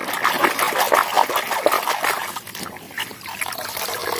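Running water splashing and trickling irregularly as a toy is washed under it.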